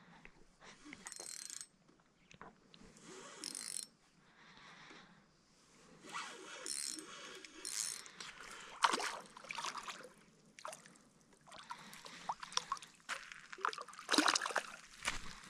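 A common carp splashing and thrashing in shallow water at the bank as it is hauled in, loudest near the end. Before that, scattered faint scrapes and rustles of the line and tackle being pulled in.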